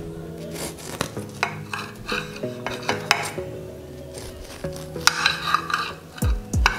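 Kitchen knife cutting through a soft-baked banana cake and scraping and clicking against a ceramic plate in a run of short, light scrapes and taps, over background music.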